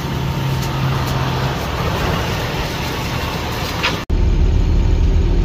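Street background noise with a steady low hum that stops after a second and a half. About four seconds in, an abrupt cut to a garbage truck's diesel engine idling, a strong low rumble heard from inside the cab.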